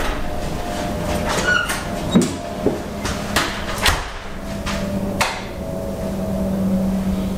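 A door opening and shutting, then a handful of sharp knocks and clicks as someone comes in, over a steady low hum.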